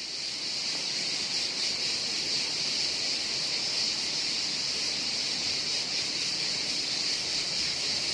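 Cicada buzzing in a steady, high-pitched drone with no breaks, cutting off abruptly at the very end.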